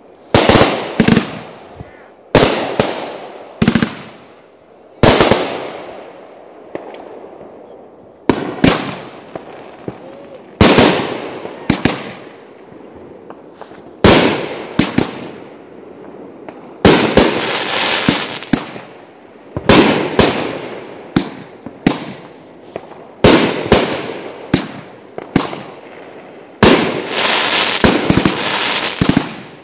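Aerial fireworks going off one after another: sharp bangs of shells bursting, each trailing off. About halfway through and again near the end come longer stretches of dense crackling from crackle-effect bursts.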